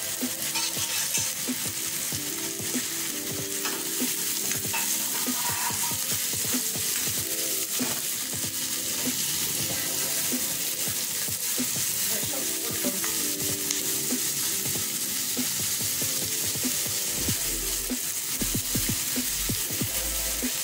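Chopped onions and green chillies sizzling in hot oil in a cast-iron kadai, stirred with a metal spatula that scrapes and clicks against the pan.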